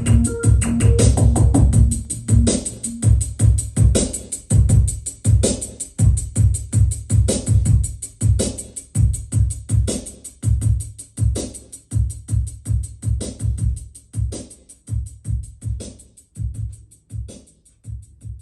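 Electronic music with a steady drum-machine beat and deep bass, slowly fading out.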